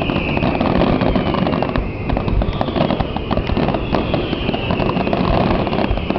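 Fireworks finale barrage: a dense, unbroken run of rapid bangs and crackles, many shells going off at once.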